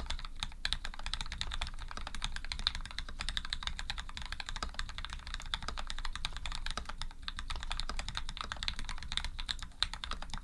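Fast, continuous typing on a Canoe v2 custom mechanical keyboard: lubed Gateron Ink linear switches with PBT keycaps on an aluminium plate, keystrokes following one another several times a second with no pause.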